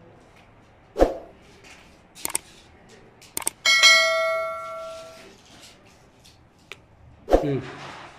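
Metal being handled: a few sharp knocks, then one clear metallic clang that rings with a bell-like tone for over a second before fading, and another knock near the end.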